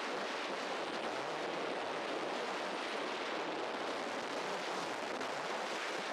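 Strong wind blowing steadily: a constant rushing hiss with no lulls or separate gusts.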